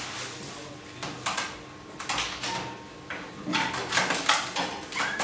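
Wire-topped plastic bird carrier rattling and clattering in short bursts as a hand reaches inside to catch a pine grosbeak, the handling getting busier in the last couple of seconds.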